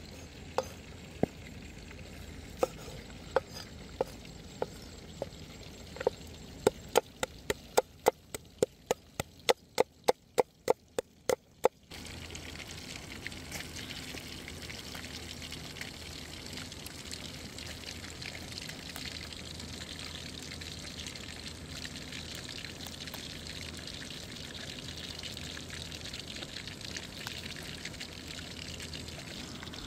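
A knife chopping on a wooden cutting board: sharp knocks, sparse at first, then quickening to about three a second, stopping about twelve seconds in. After that a steady rushing hiss.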